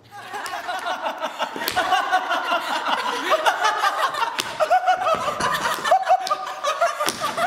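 A woman and two men laughing together, with a few sharp smacks of hands.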